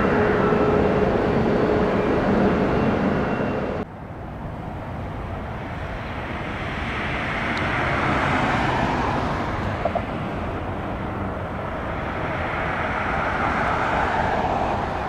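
Jet airliner engine noise: a loud roar with a steady whine that cuts off abruptly about four seconds in, followed by another aircraft's engine roar that swells and eases, louder in the middle and again near the end.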